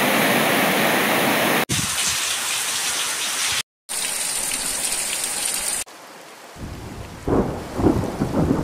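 Water rushing over a river cascade, cut abruptly to heavy rain falling, with a brief dropout in the middle. About six seconds in, it changes to low rolling thunder that builds into several louder rumbles near the end.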